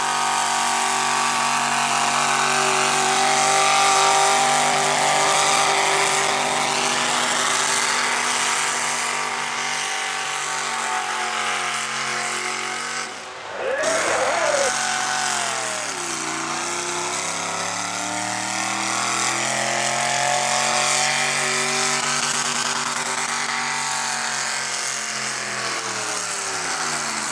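Modified pulling tractor's engine running hard under load as it drags a weight-transfer sled, a steady high-revving note. About halfway through the sound breaks off briefly, then an engine's pitch sags and climbs back up as it pulls on.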